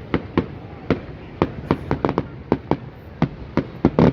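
Fireworks display going off: a rapid, irregular string of sharp bangs and cracks, about a dozen, bunching together near the end.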